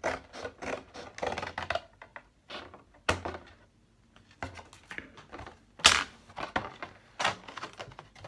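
Scissors cutting a cardboard cracker box: a run of short snips and clicks of cardboard being cut and handled, with two louder sharp clicks about three and six seconds in.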